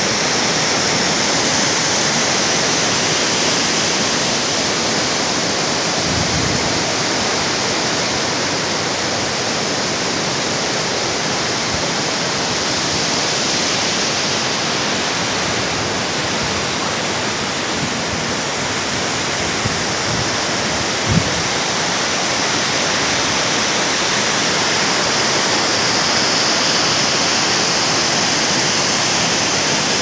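Waterfall pouring steadily into its pool: a loud, even rush of falling water. A brief low thump comes about two-thirds of the way through.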